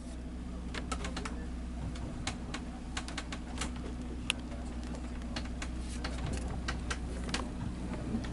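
Steady low hum of a ship's machinery heard below deck, with scattered light clicks and ticks coming irregularly, a few a second.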